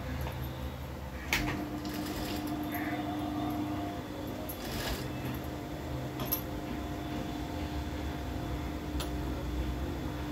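Electric sewing machine motor humming steadily, starting with a click about a second in, with a few light clicks from the machine and the fabric handling.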